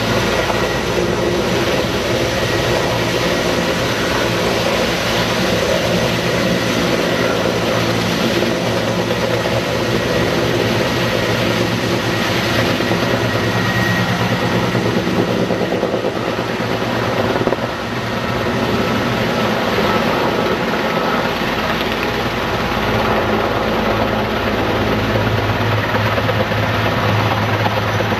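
Sikorsky S-64 Skycrane heavy-lift helicopter, its twin turbine engines and rotor running steadily and loud, as it hovers drawing water through its snorkel hose to refill its tank, then lifts away.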